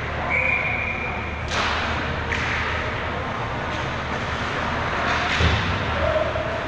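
Ice hockey play in a rink: sharp scrapes and clacks from skates, sticks and puck, and a heavy thud against the boards about five and a half seconds in. A brief high steady tone sounds near the start.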